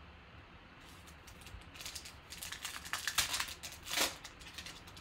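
Foil wrapper of a trading-card pack crinkling and tearing as it is ripped open by hand. The crackling starts about a second in and is loudest near the end.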